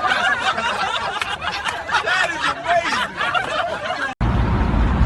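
People snickering and chuckling. About four seconds in it cuts off abruptly to a steady low rumble.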